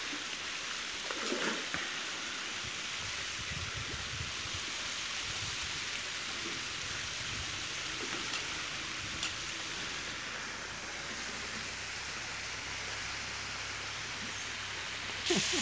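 Water splashing and churning at the pond surface as a hooked patinga thrashes near the bank, heard as a steady hiss like running water. It gets louder just before the end.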